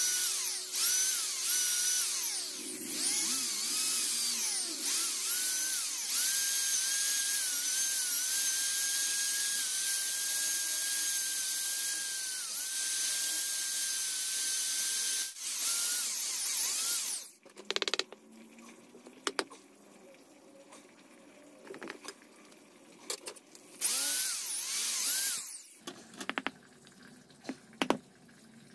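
Corded electric hand drill boring through a wooden knife-handle block: the motor whine rises each time the trigger is squeezed, then runs steadily for about sixteen seconds with one brief stop before cutting off. After a pause of light knocks and clicks, the drill runs again in one short burst, followed by more tapping.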